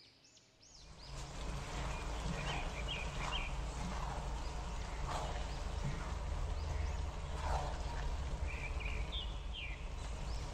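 A spatula turning rice in a steel pot on the stove, a few soft scrapes and knocks over a steady cooking hiss and low hum that start about a second in. Birds chirp faintly in the background now and then.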